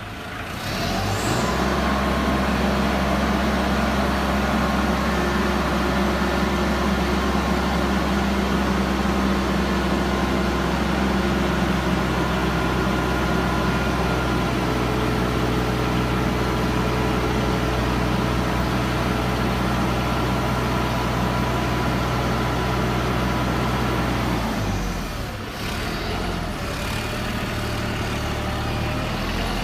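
Diesel engine of a 3.5-ton forklift running steadily at a raised speed, with a low, even drone. About 25 seconds in it dips briefly and then settles to a slightly quieter, lower-pitched steady run.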